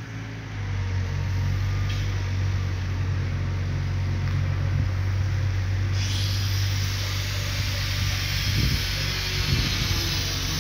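A machine motor running steadily with a low hum, joined about six seconds in by a loud steady hiss.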